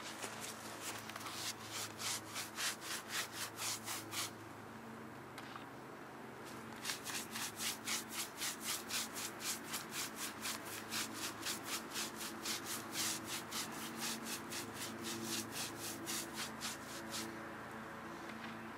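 Rhythmic scraping or rubbing strokes, about three a second, in two long runs with a pause between, over a steady low hum.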